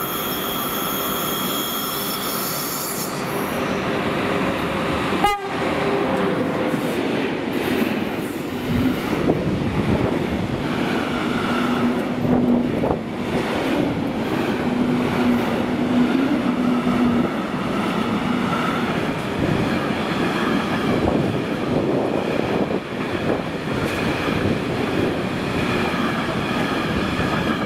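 Freight train headed by a class 181 electric locomotive passing close by: a horn blast of about three seconds at the start, then the steady rumble and clatter of container wagons rolling past, with intermittent wheel squeal.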